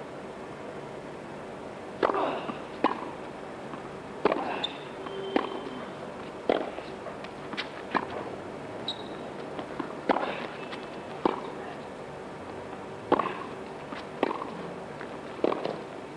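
Tennis rally: a tennis ball struck hard by rackets and bouncing on the court, sharp cracks about every half second to second and a half, with a few short high squeaks in between.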